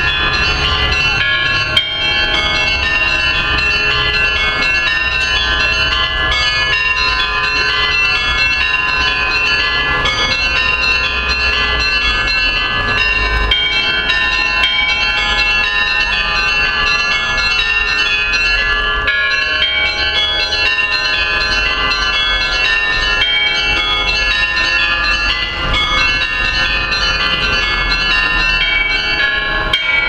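Russian Orthodox church bells of St. Nicholas Church being rung in a continuous chiming peal, many bells struck in quick succession so their tones overlap without a break.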